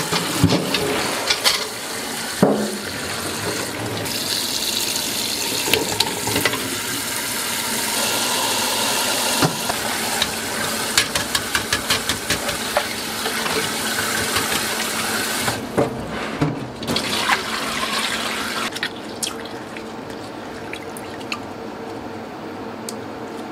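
Tap water running into a stainless steel pot of hard-boiled eggs in a sink, with frequent sharp clicks and knocks of eggshells cracking and eggs hitting the pot as they are peeled under the stream. The water noise drops lower about three-quarters of the way through.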